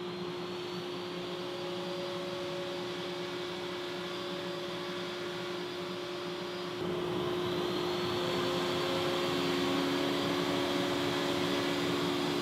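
Plunge router running with a flat chamfer bit, cutting grooves in a board through a slotted template: a steady motor whine. The whine climbs in pitch about a second in, and again after the sound steps louder about seven seconds in.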